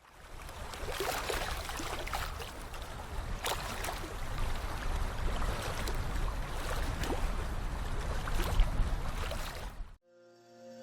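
Steady rushing noise with a heavy low rumble and scattered crackles, like outdoor water or wind on the microphone, cutting off abruptly about ten seconds in; faint music tones begin just after.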